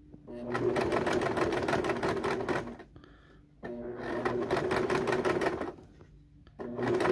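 Electric sewing machine running in bursts as it zigzag-stitches coiled cotton rope: two runs of rapid needle strokes of about two seconds each with short pauses between, and a third run starting near the end.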